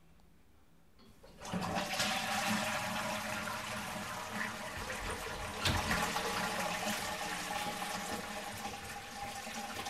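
Toilet flushing, starting suddenly about a second and a half in, then a steady rush of water as the cistern refills, with a faint whistle in it. A single sharp click about halfway through, as the bathroom door opens.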